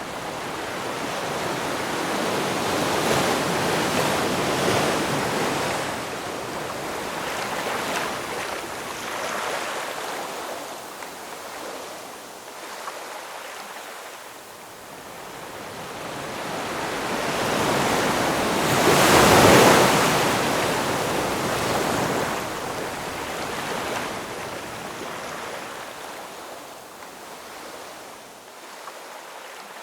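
Ocean waves breaking and washing on the shore in slow surges, one wave breaking loudest about two-thirds of the way through.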